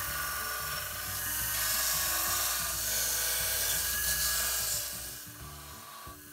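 Narrow belt sander grinding down a dry apple-wood hammer handle: the belt rasps against the wood over a steady whine and hum from the motor. The sanding eases off about five seconds in as the handle is lifted from the belt.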